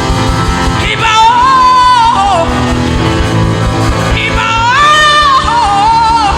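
Live gospel worship music: a band plays under a voice singing wordless, melismatic runs in two long phrases, the second starting a little past the middle.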